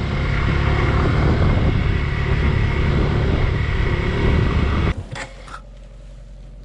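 Suzuki Gixxer 150 motorcycle on the move: engine and wind rush on a helmet- or bike-mounted mic. It stops abruptly about five seconds in, leaving a low steady hum and a few clicks.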